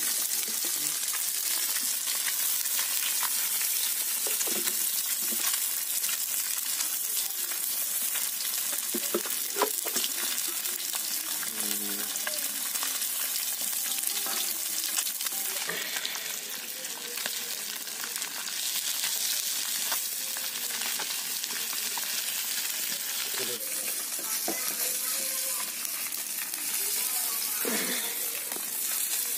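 Hot oil sizzling steadily around whole turmeric-coated fish shallow-frying in an iron pan, with a few faint clicks as a spatula turns the fish.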